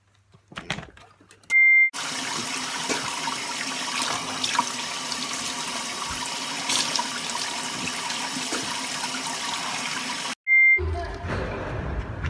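Steady rush of running water that stops abruptly, with one short high electronic beep just before it starts and another just after it stops.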